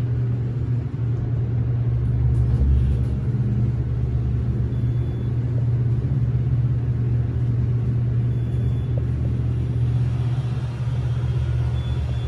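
Elevator car travelling between floors: a steady low hum and rumble, swelling briefly about two and a half seconds in.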